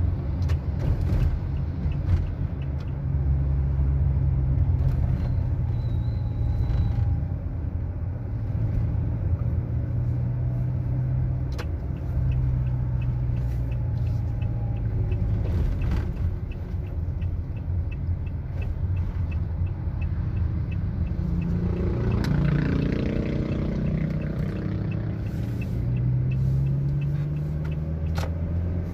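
Road traffic heard from a moving vehicle on a city street: a low, steady engine drone with motorcycles and cars around. A quick regular ticking runs for several seconds in the middle, and a passing engine swells and shifts in pitch about two-thirds of the way through.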